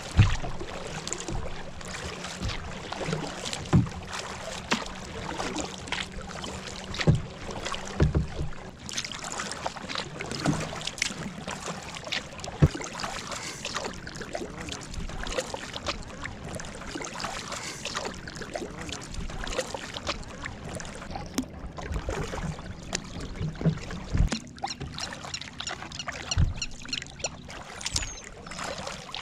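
Kayak paddle strokes: the blades dip and splash, and water trickles and drips off them. Occasional sharp knocks stand out from the splashing.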